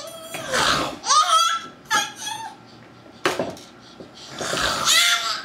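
A baby making high-pitched squeals and shrieks in several separate bursts, the longest near the end.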